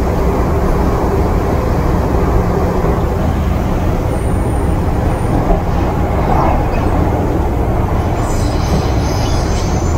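Steady low rumble of an MTR M-Train metro car heard from inside the crowded passenger saloon as the train runs.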